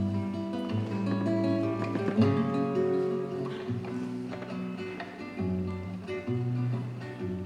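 Acoustic guitar playing an instrumental introduction, plucked and strummed, with a changing bass line under the chords.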